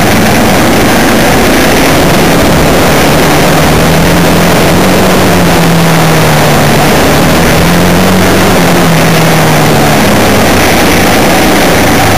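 Vehicle engine running under way, its pitch rising and falling twice, under a loud steady rush of wind and road noise on the microphone.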